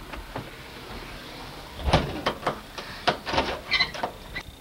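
A wooden door being closed: a thud about two seconds in, then a run of quick clicks and knocks.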